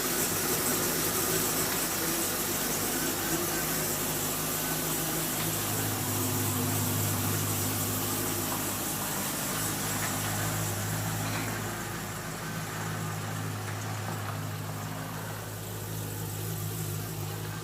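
Supercharged Holden VE Commodore engine running steadily, most likely idling, with a constant hum and hiss. The owner suspects a lifter noise.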